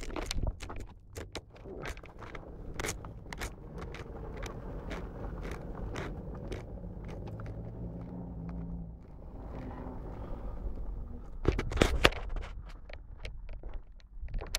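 Crackling, rustling wind and handling noise on the phone's microphone over a low rumble, with the faint engine note of a small 4x4 driving in the distance coming through about eight seconds in. A louder rustle comes about twelve seconds in.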